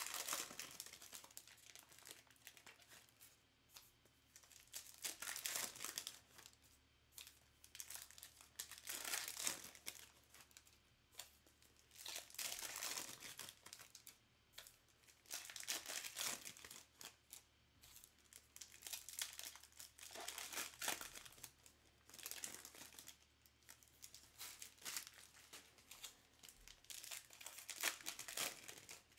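Trading-card pack wrappers being torn open and crinkled, in repeated short bursts of rustling every second or two.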